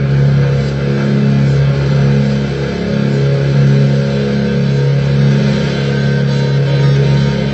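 Loud drone music: a few low tones held steady throughout, under a constant noisy wash.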